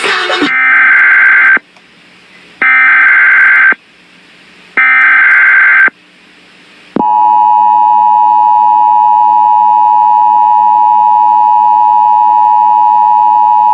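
Emergency Alert System header: three identical bursts of warbling digital data tones, each about a second long and a second apart, followed about seven seconds in by the long steady EAS attention tone. Together they open an emergency alert, here a tornado warning.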